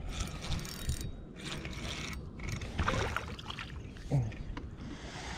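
Fishing reel being cranked as a small bass is wound in and lifted from the water, the reel's gears whirring and clicking.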